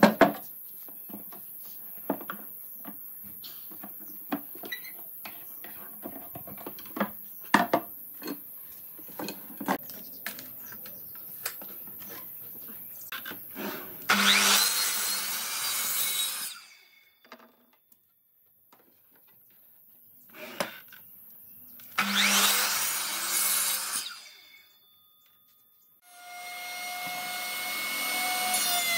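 Scattered clicks and knocks as pipe clamps are worked on a glued-up pine panel. Then a sliding compound miter saw makes two crosscuts through the pine boards, a few seconds apart. Near the end a router table's motor starts and runs with a rising whine.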